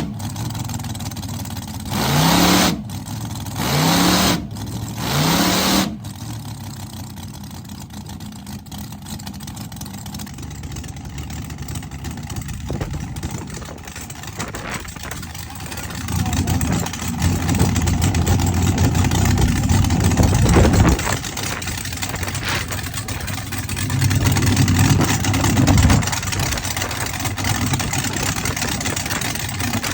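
Drag car engine running and revved with quick blips of the throttle: three short rising revs in the first six seconds, then a rough, steady idle, then longer spells at higher revs about halfway through and again near the end.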